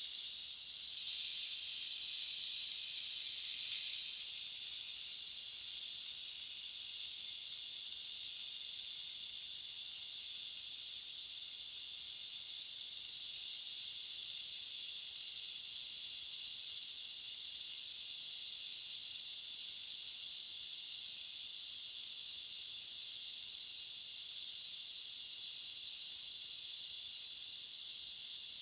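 Steady, even hiss of steam escaping from a lidded aluminium pot on the heat.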